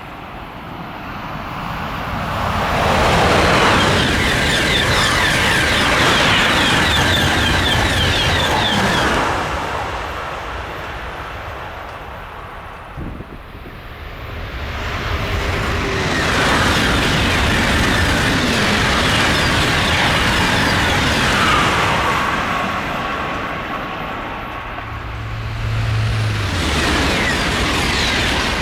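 TGV high-speed trains passing at speed, heard three times in succession. Each passage is a loud rushing roar of wheels and air that swells over a couple of seconds, holds for several seconds, then fades.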